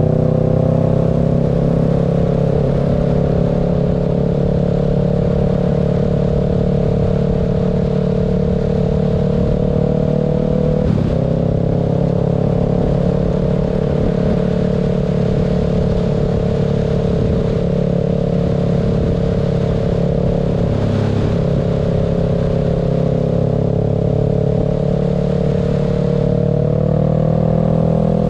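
Motorcycle engine running steadily at cruising speed, mixed with wind and road noise. Its pitch dips briefly about eleven and twenty-one seconds in and climbs near the end.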